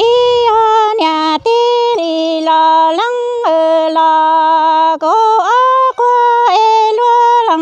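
A single unaccompanied voice singing Hmong kwv txhiaj sung poetry: long held notes that step between a few pitches, with brief breaths between phrases and a swoop down and back up about five seconds in.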